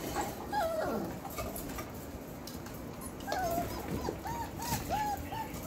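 Four-week-old Belgian Malinois puppies whining and yipping. There is a drawn-out whine about half a second in, another a little after three seconds, then a quick string of about five short yips near the end, with scattered light clicks in between.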